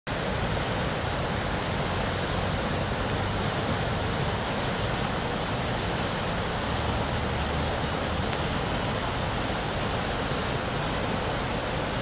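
The Arkansas River's water rushing by: a steady, unbroken wash of flowing-water noise.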